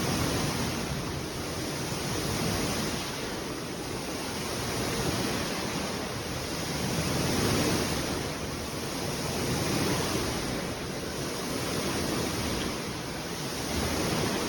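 Pool water sloshing during an earthquake and pouring over the infinity edge: a steady rushing that swells and fades every couple of seconds.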